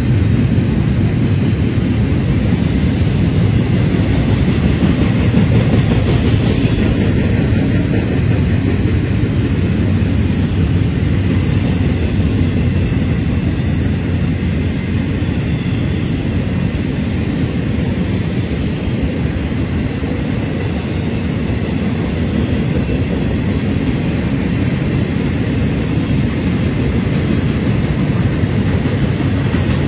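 Florida East Coast freight train's double-stack container well cars and trailer flatcars rolling past, a steady loud rumble of wheels on rail.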